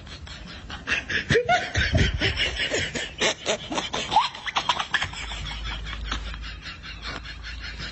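People laughing in quick snickers and chuckles, which die down after about five seconds.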